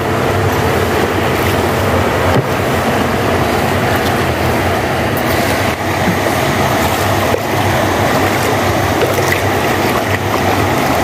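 A boat engine running steadily with a low drone, mixed with wind and water noise.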